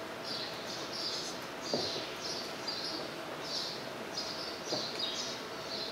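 A bird chirping over and over, about two short high chirps a second, over steady background noise. A soft knock comes about two seconds in and another near the end.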